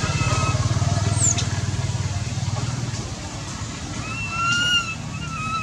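Baby macaque giving thin, high-pitched whimpering coos: one longer call about four seconds in and a short one near the end, the sound of an infant crying for its mother. Under them a low engine rumble runs, fading after about three seconds.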